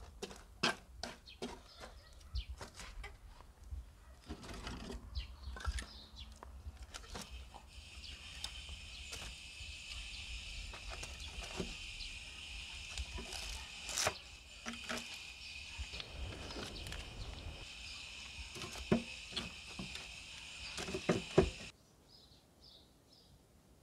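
Knocks, scrapes and crackles of embers being raked and wooden logs laid on glowing charcoal in a steel brazier. The clicks are thickest at the start, and a steady high hiss joins about eight seconds in.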